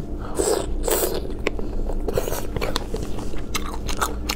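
Close-up eating sounds of a person biting and chewing chicken feet: two rasping bursts about a second in, then a run of quick sharp clicks near the end.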